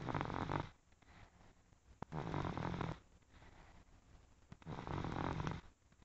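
Snoring: three rough snores, each under a second long, coming about every two and a half seconds.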